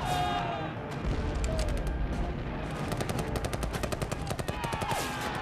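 Battle gunfire: rifle and machine-gun shots, scattered at first, then a fast, dense string of shots through the second half.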